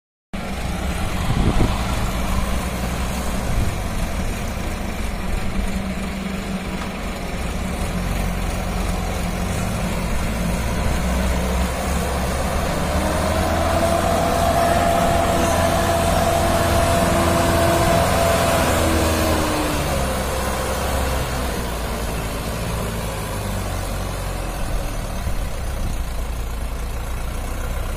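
Diesel engine of a Mahindra 595 tractor running under heavy load, hauling a trolley heaped with soil. It keeps a steady low drone, and a higher whine rises and holds for several seconds in the middle before dropping away.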